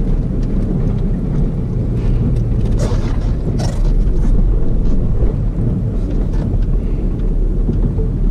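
Low, steady rumble of a 1990 Toyota Land Cruiser heard from inside the cab as it rolls slowly across a car park, with a few short knocks and rattles about three seconds in.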